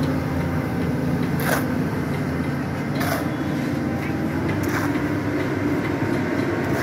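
Doosan hydraulic excavator's diesel engine running steadily, with three short sharp knocks spaced about a second and a half apart.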